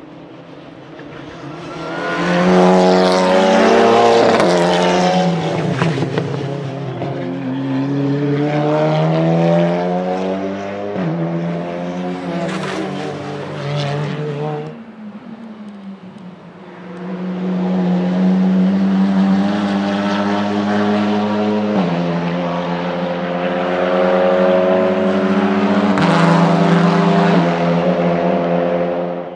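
2020 Cupra Leon Competición TCR race cars, with 2.0-litre TSI turbocharged four-cylinder engines, passing at speed on track. The engine note climbs and falls, with sudden jumps in pitch at the sequential gearbox's shifts. One pass dies away about halfway through before the next builds.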